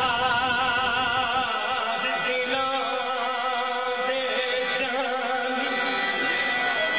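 Qawwali: a singer holding long notes with a wide vibrato over the steady sustained tones of a harmonium.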